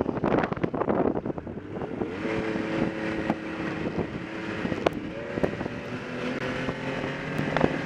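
Wind rush on the microphone dies away in the first second or two, leaving a snowmobile engine running at a steady low speed, with a few sharp clicks.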